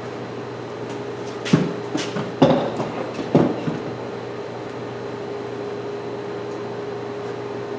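A clamp rack being handled and set in place against the wall: a handful of knocks and thumps in the first half, over a steady low hum.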